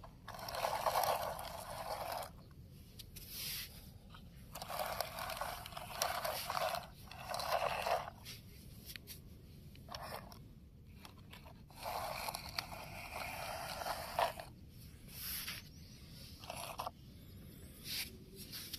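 Plastic wheels of a toy train and its trailer scraping and crunching through loose sand as it is pushed by hand, in several short stretches with pauses between.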